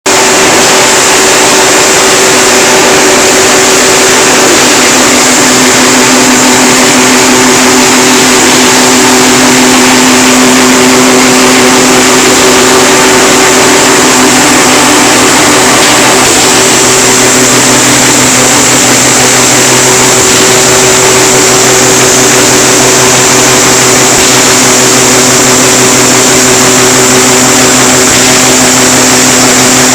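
TJK GT8-12 wire straightening and cutting machine running: a loud, steady mechanical whine with a high hiss, holding an even pitch throughout.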